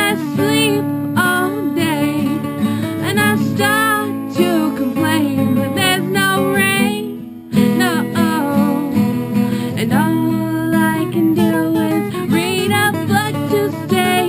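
A song with strummed acoustic guitar and a singing voice. The music dips briefly about halfway through, then carries on.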